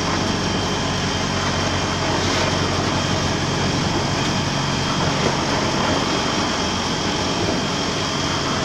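A machine running steadily nearby: an even low hum with a constant hiss over it, without a break or change.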